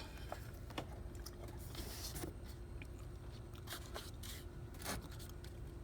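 Faint, scattered small clicks and scrapes of the battery hold-down screw being turned in by hand and metal parts being handled in the engine bay.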